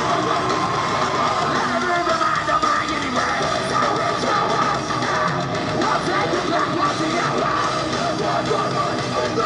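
Live metalcore band playing heavy, loud music with electric guitars and drums, heard from the crowd.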